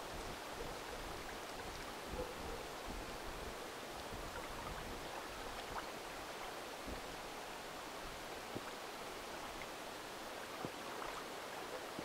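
Steady outdoor hiss of wind and gently moving water, with low wind rumble on the microphone, strongest in the first couple of seconds.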